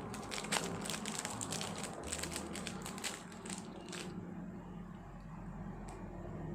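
Plastic packaging crinkling and crackling as it is handled and unwrapped. The crinkling is dense for about the first four seconds, then thins out to a few faint ticks.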